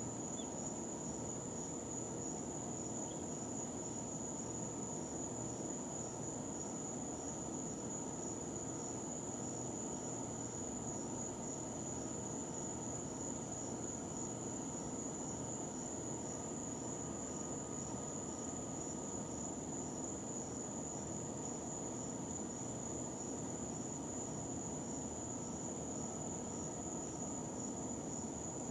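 Steady high-pitched whine over an even low hiss, unbroken throughout, with no chick peeping.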